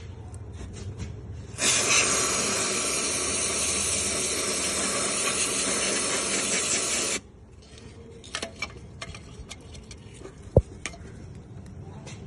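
Aerosol cleaner (WD-40-type spray) sprayed onto a car's clutch release fork in one long hiss of about five and a half seconds, starting a couple of seconds in and stopping suddenly; it is cleaning out the dirt that has built up on the dry, unlubricated fork pivot. Light clicks follow, and then one sharp knock.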